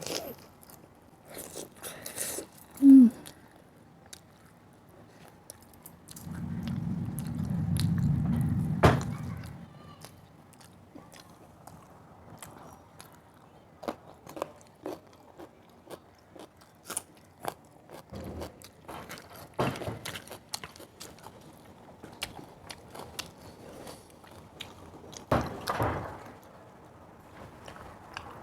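Close-miked chewing and biting of food, with scattered crunches and wet mouth clicks. A short loud low tone sounds about three seconds in, and a low rumbling noise runs from about six to nine seconds.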